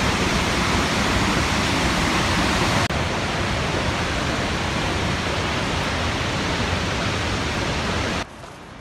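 Vernal Fall's water crashing down, heard close by as a steady, loud rush. Near the end it cuts suddenly to a much quieter rush.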